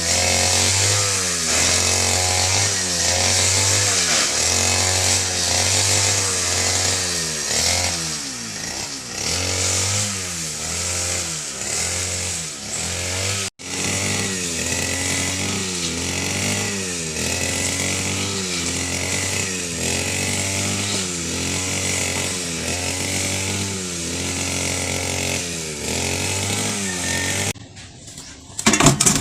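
A small engine running, its pitch rising and falling over and over as if being revved.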